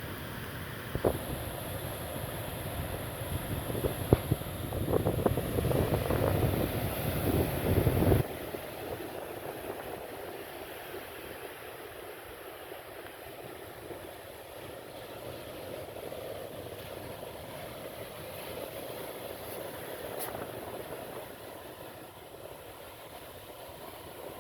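Wind rumbling on the microphone over the sound of the sea, loud for about eight seconds and then dropping suddenly to a steady, quieter wash of surf.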